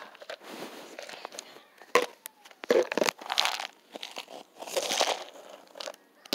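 Clear plastic snack container with a snap-on lid being handled and knocked about by a baby: a series of sharp plastic clicks and knocks with rustling in between.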